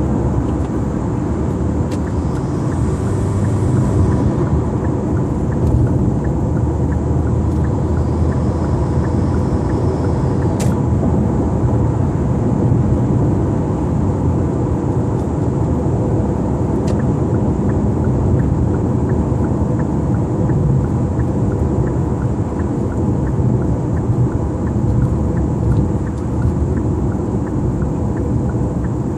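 Kia Optima 2.0T's turbocharged four-cylinder engine, fitted with an Injen short ram intake, running while the car is driven, heard from inside the cabin as a steady low rumble.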